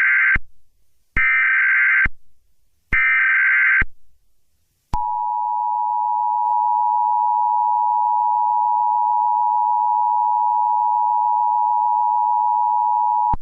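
Emergency Alert System broadcast tones: three short bursts of warbling SAME header data, each just under a second long and about a second apart, then the steady EAS attention signal, a two-tone hum, held for about eight seconds and cut off sharply.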